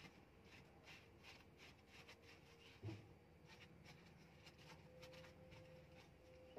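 Near silence, with faint scattered clicks and one soft thump about three seconds in.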